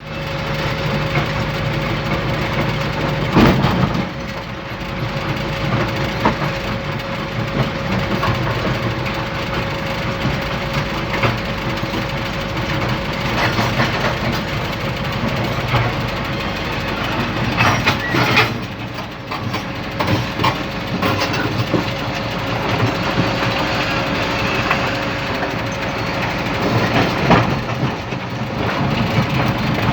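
Dump truck engine running, heard from inside the cab, with a steady whine over its hum. A few loud knocks and rattles come from the cab, the biggest about three seconds in and again about halfway through.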